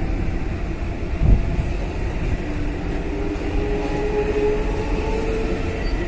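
Train running: a steady low rumble with faint, slowly shifting tones, and a brief thump about a second in.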